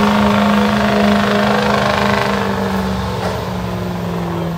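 2006 Ford pickup's 6.0-litre Power Stroke turbo-diesel V8 at full throttle, pulling a weight-transfer sled. It makes a loud steady drone whose pitch sags slightly near the end as the load builds.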